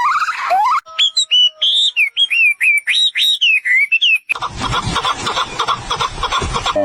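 A bird singing a quick run of clear, whistled notes that slide up and down in pitch, followed from a little past the middle by a harsher, rasping noisy call.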